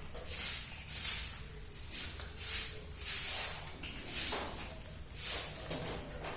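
Cat eating dry kibble: irregular crisp crunches and rattles, about one or two a second.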